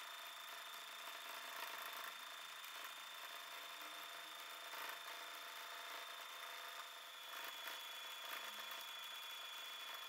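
Domestic sewing machine running steadily during free-motion stitching: a faint, even mechanical whir.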